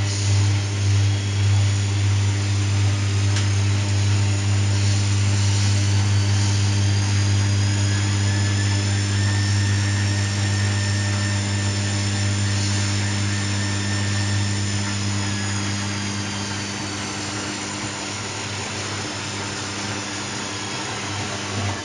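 Washing machine running: a steady low motor hum, with a faint high whine that slowly rises and then falls back in pitch. It eases off a little in loudness near the end.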